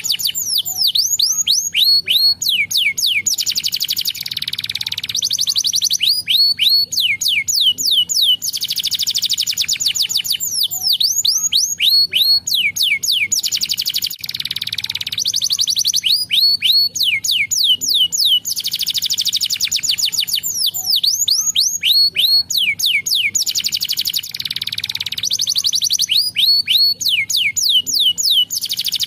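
Domestic canary singing without pause: quick runs of falling whistled notes alternate with fine, fast rolling trills.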